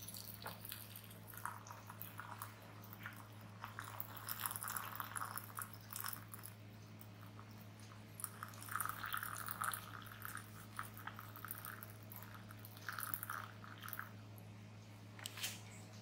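Water poured in a thin stream into a glass pitcher of dried damask rose buds, trickling and splashing unevenly in several surges, then stopping near the end. A steady low hum runs underneath.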